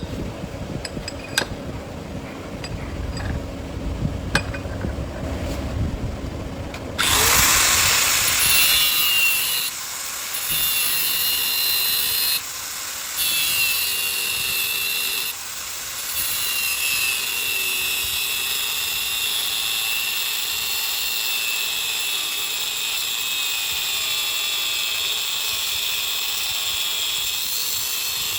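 Light clicks and handling noise, then about seven seconds in a power tool starts and runs steadily with a high whine, cutting out briefly a few times.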